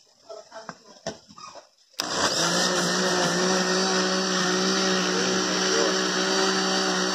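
Electric kitchen blender switched on about two seconds in, its motor running steadily as it blends a liquid mix of condensed milk and passion fruit syrup. A few faint knocks come before it starts.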